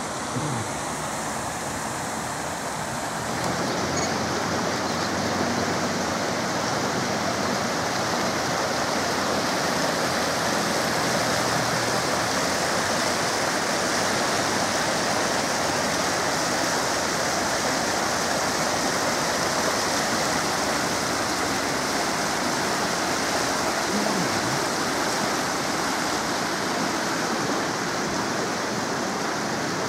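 Muddy floodwater rushing and churning along a ditch: a steady rushing noise that grows a little louder a few seconds in.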